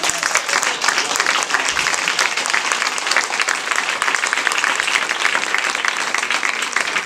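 Audience applauding: many hands clapping together in a loud, dense patter.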